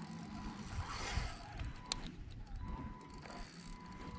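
Fishing reel being wound in, with small mechanical clicks and one sharp click about two seconds in, over a low wind rumble on the microphone.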